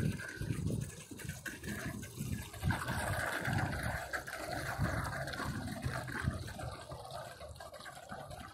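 Water churned up by a Flytec RC bait boat's propellers as it drives off: a splashing, bubbling wash that starts about three seconds in and keeps going. An uneven low rumble lies underneath.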